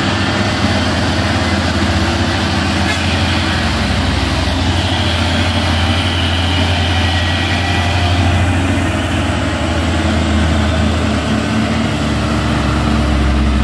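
Heavy truck's diesel engine pulling a trailer slowly uphill under load, a steady low drone that deepens a little near the end as the truck passes.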